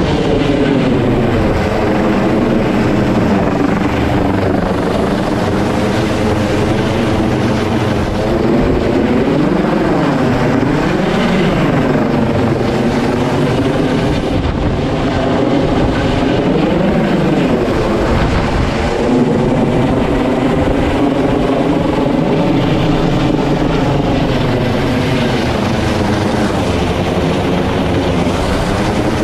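MH-65 Dolphin helicopter hovering close overhead during a basket hoist, its rotor and engine noise loud and steady. A stack of tones in the sound wavers up and down in pitch several times.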